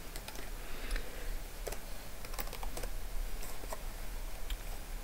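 Computer keyboard typing: irregular, scattered keystrokes, over a low steady hum.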